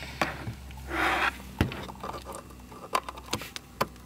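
Optical cable with a mini Toslink adapter handled and plugged into a Mac mini's rear port: scattered small clicks and knocks, with a brief rustling scrape about a second in, over a low steady hum.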